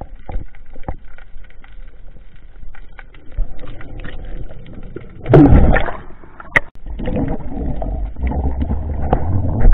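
Muffled underwater sound picked up by a freediver's camera: water movement and scattered knocks, with a louder rush a little over five seconds in and steady low rumbling through the last few seconds.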